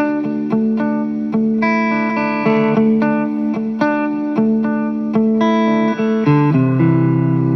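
Electric guitar played through an Alien Rabbit Magic Drive tube overdrive pedal into a Fender amp, set for low-gain, lightly broken-up drive. Picked notes and chords ring out about every half second, moving to a lower, fuller chord about six seconds in.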